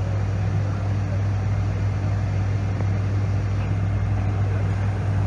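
Schutte 305 Linear CNC tool and cutter grinder running in its enclosure: a steady deep hum with an even rushing noise over it.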